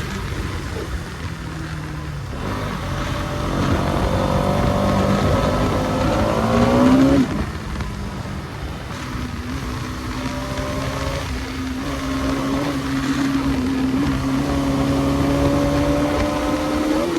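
Bajaj Pulsar NS200 BS6 motorcycle's single-cylinder engine under way: revs climb for a few seconds, fall abruptly about seven seconds in, then build slowly and steadily again before falling once more near the end.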